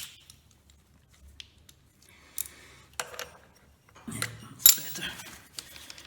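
Small metal scooter transmission parts (washers, clutch and clutch bell) clinking and clicking against each other and the casing as they are handled and fitted. The clinks are scattered, with a busier run about four to five seconds in.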